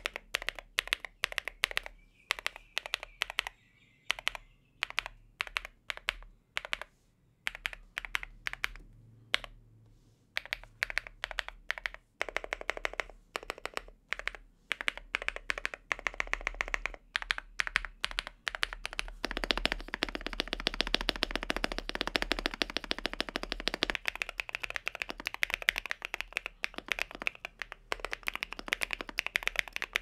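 Wind Z75 mechanical keyboard being typed on: keycaps clacking over London Frog switches on a POM plate with full foam. Separate key presses with short gaps at first, then typing that grows denser and becomes a fast, continuous run of keystrokes about twenty seconds in, which then goes on a little lighter.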